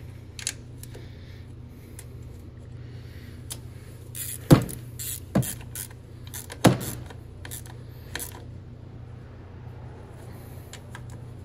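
Hand tools working the valve cover bolts on a four-cylinder engine: a few sharp metallic clicks and knocks, the two loudest about four and a half and six and a half seconds in, over a steady low hum.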